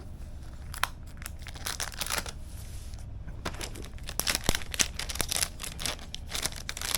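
Plastic wrapping crinkling and tearing as it is pulled off a new laptop: irregular rustles and crackles, with a short lull about three seconds in and busier handling after it.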